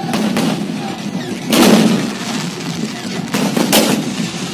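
Firecrackers exploding: a few sharp bangs, the loudest about a second and a half in and two more close together near the end.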